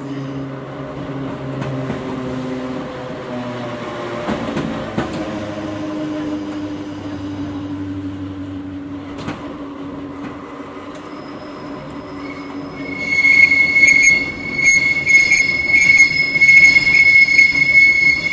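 Hakone Tozan Railway Moha 1 electric car heard from inside, car No. 103: the drone of its nose-suspended traction motors and gears, shifting in pitch. About two-thirds of the way through, a loud, steady, high-pitched squeal of the wheels takes over and is the loudest sound.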